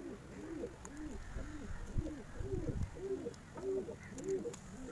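Domestic pigeon cooing: a steady run of short rising-and-falling coos, about two to three a second.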